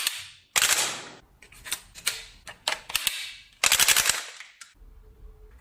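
Gunfire: a short burst of shots, a few scattered single shots, then a rapid burst of several shots in quick succession.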